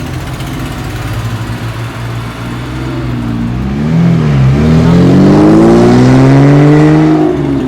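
A car engine accelerating hard past: the revs climb, dip briefly about four and a half seconds in as with a gear change, then climb again to the loudest point before falling away near the end. A low steady engine rumble runs underneath at the start.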